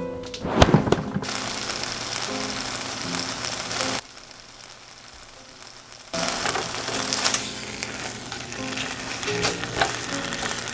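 Meat sizzling and frying in a pan, a dense crackling hiss. It drops away for about two seconds in the middle, then comes back.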